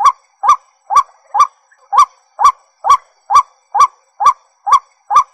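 White-breasted waterhen calling: a loud, monotonous series of short, identical upward-sweeping notes, repeated a little over twice a second.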